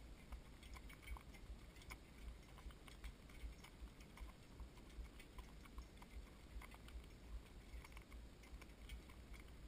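Faint, soft hoofbeats of a harnessed horse walking while pulling a cart, an uneven clopping over a steady low rumble.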